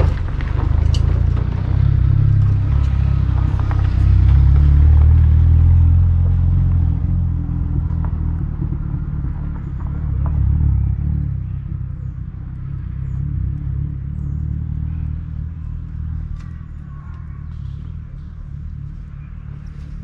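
A deep, low rumble that swells to its loudest a few seconds in and then slowly dies away.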